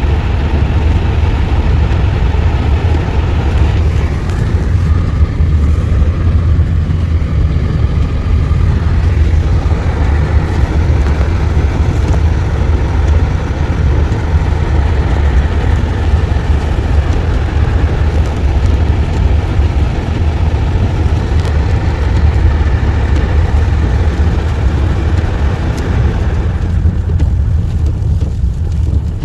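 A vehicle driving on a snow-covered road: a steady low rumble of engine and tyres, the higher road noise easing off near the end.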